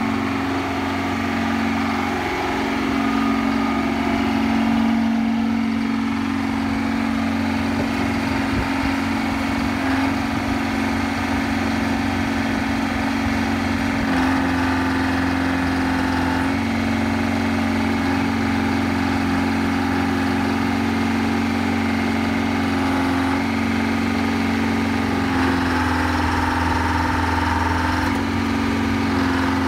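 Hy-Hoe 685B excavator's diesel engine running steadily, its note shifting slightly now and then.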